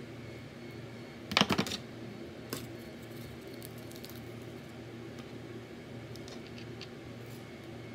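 A quick clatter of small clicks about a second and a half in, then a single tick and a few faint taps: wooden craft sticks being handled and set down on a tabletop. A steady low room hum runs underneath.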